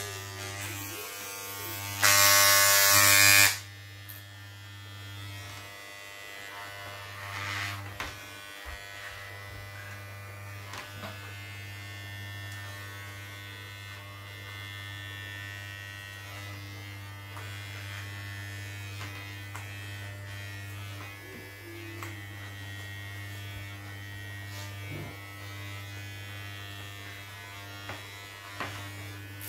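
Corded electric hair clippers buzzing steadily as they cut hair close to the head, with a much louder stretch lasting about a second and a half near the start.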